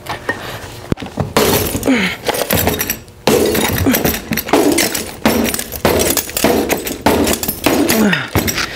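Metal baseball bat striking a window pane again and again, roughly once a second, with the crunch and clink of shattered glass on each hit. The glass is held together by 3M security window film, so it cracks but stays in the frame.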